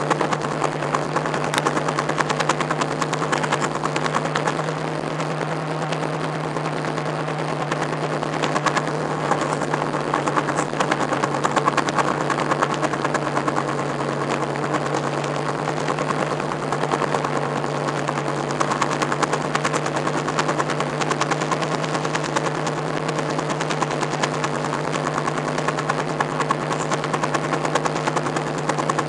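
Motorboat engine running steadily at cruising speed, a constant drone, with crackling buffeting over it from wind hitting the microphone as the boat moves.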